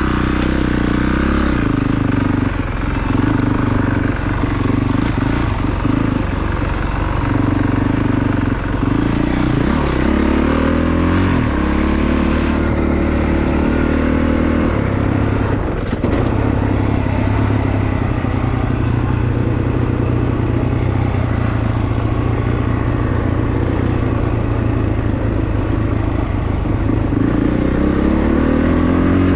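Honda CRF450RX dirt bike's single-cylinder four-stroke engine accelerating from a near stop and riding on, its pitch rising and falling with the throttle and gearchanges through the first dozen seconds, then running steadier.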